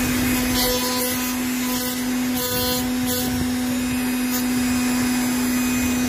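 A 775 double-ball-bearing brushed DC motor spinning a small plastic fan blade at high speed, giving a steady, even hum. A few short hissy bursts break in during the first half.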